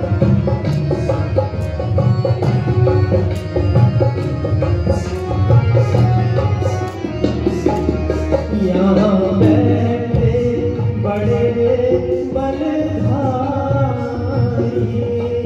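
Indian devotional stage music with a steady hand-drum beat; a voice starts singing over it about halfway through.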